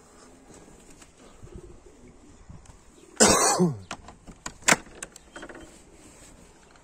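A man coughs once, loudly and briefly, about three seconds in, followed by a few sharp clicks. Before the cough, pigeons coo faintly.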